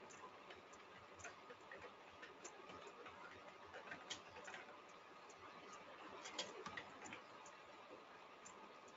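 Faint, irregular key clicks of a computer keyboard being typed on, with a quick cluster of keystrokes about six and a half seconds in.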